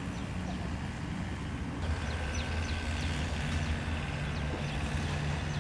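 A low steady hum with small birds chirping in short, high, falling notes over it. The background changes about two seconds in.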